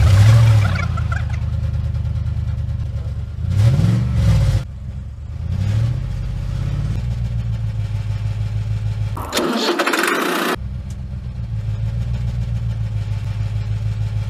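Truck engine sound effect: an engine starts abruptly and runs, revving up and back down around four and six seconds in. Near ten seconds in it drops out for about a second under a burst of hissing noise, then runs steadily again.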